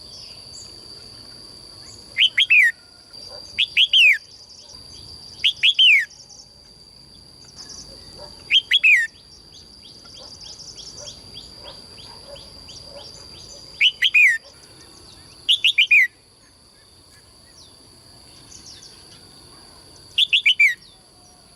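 A songbird calling seven times, each call a quick cluster of two or three falling whistles. Underneath runs a steady high-pitched tone, and a brief fast ticking trill comes about midway.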